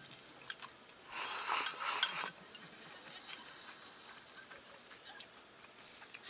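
Chopsticks scraping and clicking against a ceramic bowl for about a second, followed by scattered light clicks of tableware.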